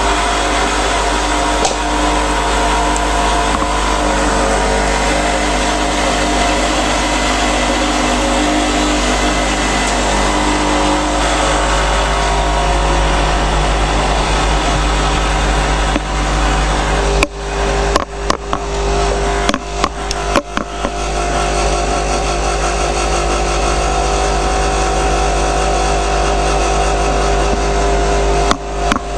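Ascaso Steel espresso machine's vibratory pump running steadily while a shot of espresso is extracted. It is a loud, constant hum, cut by a few short breaks a little past halfway and again near the end.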